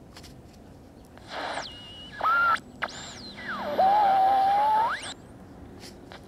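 A Philco transistor radio at full volume squeals and whistles over static hiss as its dial is turned. High whistles slide up and down in pitch, and near the middle one holds steady for about a second before sweeping sharply up and cutting off. It is a symptom of an IF transformer that will not peak at 455 kHz, most likely from failing capacitors inside the transformer (silver mica disease).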